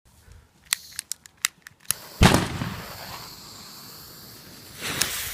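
Fireworks going off: a quick run of about seven sharp cracks, then a much louder bang about two seconds in, followed by a long fading hiss. Another swell of hiss with a crack comes near the end.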